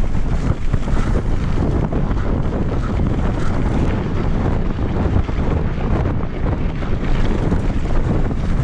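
Wind buffeting the camera microphone during a mountain bike ride. It makes a loud, steady rushing noise heaviest in the low end.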